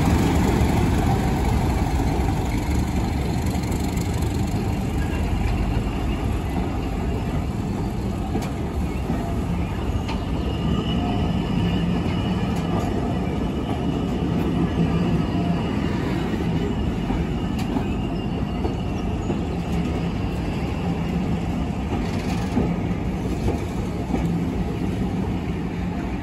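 Class 31 diesel locomotive, with its English Electric V12 engine, pulling away as its train of coaches rolls past at low speed. The steady low rumble of the engine and wheels on rail is loudest at first and slowly fades. Light wheel squeal comes in from about halfway.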